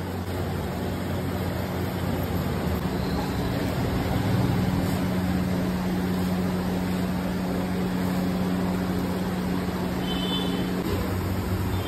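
A steady machine hum over an even rushing noise, and the hum drops out shortly before the end.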